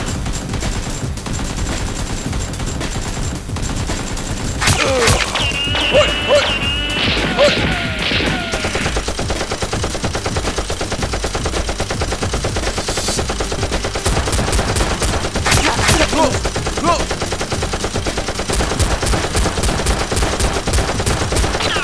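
Rapid bursts of gunfire sound effects, like automatic weapons firing, over background music, with a few falling whistling sounds about five seconds in.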